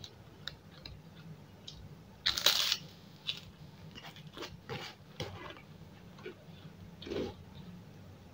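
A crisp puffed kerupuk cracker crunching: one loud crunch about two and a half seconds in, a run of smaller crackles after it, and another crunch near the end.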